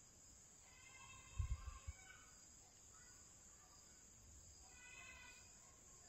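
Near silence, with two faint bouts of high chirping, one about a second in and one near the end, and a few soft low thumps about a second and a half in.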